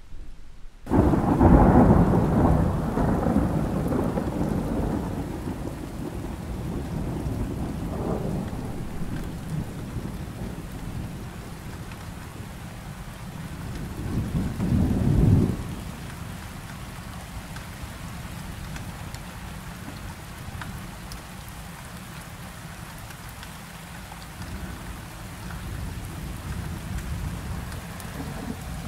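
Rain falling steadily during a thunderstorm. A loud thunderclap breaks in about a second in and rumbles away over several seconds, and a second, shorter roll of thunder comes about halfway through.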